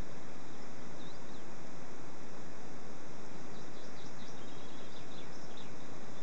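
Steady hiss of background noise with faint, high bird chirps, one pair about a second in and a quick run of them from about three and a half to nearly six seconds in.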